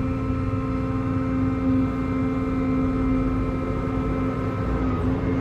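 Excavator's diesel engine running steadily while digging, with a steady whine above the low engine rumble.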